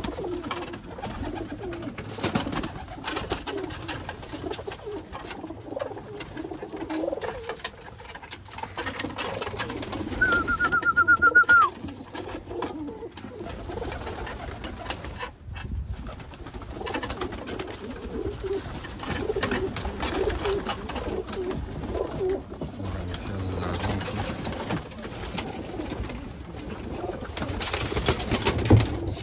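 A loft full of domestic pigeons cooing steadily, with scattered clicks and wing flaps as the birds feed and fly about. About ten seconds in, a loud warbling trill sounds for a second and a half.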